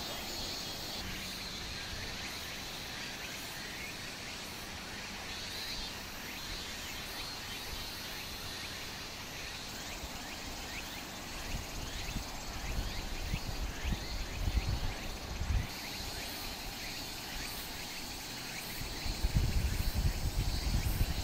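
Outdoor ambience of insects and birds calling, many short chirps over a steady hiss. Wind buffets the microphone in low rumbling gusts from about halfway through and again near the end.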